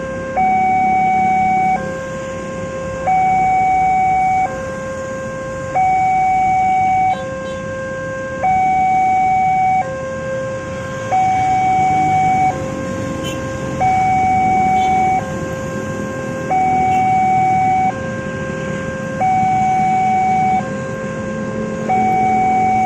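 Railway level-crossing warning alarm sounding a two-tone signal, a higher tone and a lower tone alternating, each held about a second and a quarter: the crossing is warning that a train is approaching. A low rumble of road traffic runs underneath.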